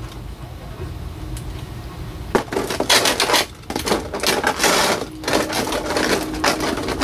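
Clear vacuum-formed plastic packaging tray being handled and squeezed by hand, crinkling and crackling in irregular bursts that start about two seconds in and are loudest in the middle.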